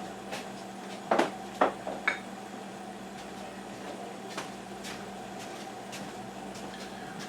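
Three sharp knocks of kitchen items being handled, about a second in and half a second apart, followed by a few faint clicks, over a steady hum.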